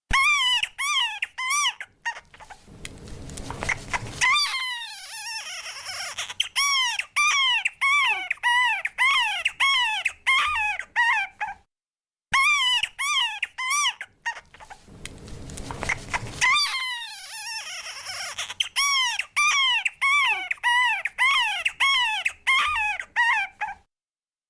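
Newborn baby crying in short, high-pitched wails that rise and fall about twice a second, sped up, with a breathy rasping stretch between bursts. The same stretch of crying plays twice, with a brief break halfway.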